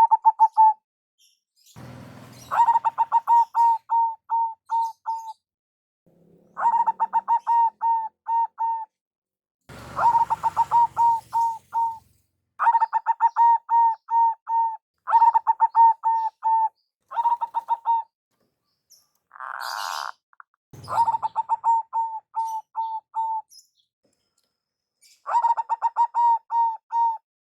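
Zebra dove (perkutut) calling: repeated phrases of quick cooing notes, each phrase one to three seconds long, with short gaps between phrases. A few brief bursts of noise break in, near the start, in the middle and again later.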